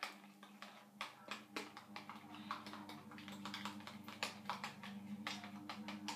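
Irregular light clicks and taps of hair dye being mixed, the mixing tool knocking against its container, over a faint steady hum.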